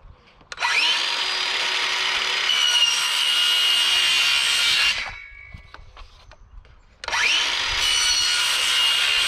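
Cordless circular saw cutting through white PVC pipe. The motor spins up with a rising whine and runs under load for about four seconds, then stops. It starts again for a second pass about seven seconds in.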